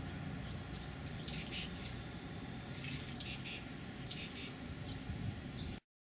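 Dark-eyed juncos of the Oregon form giving short, sharp high chip calls, three of them, with a thin high note between the first two. The sound cuts off just before the end.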